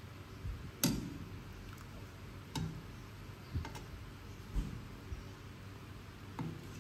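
Metal ladle knocking against the side of a pan of chicken curry while stirring and scooping, a handful of sharp clinks at irregular intervals, the loudest about a second in.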